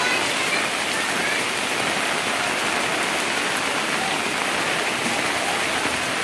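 Heavy rain falling steadily, a dense, even hiss of rain on surfaces.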